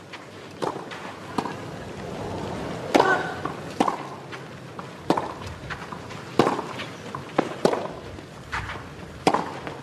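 Tennis rally on a clay court: a string of sharp racket strikes on the ball, about one every second, alternating between the near and far ends.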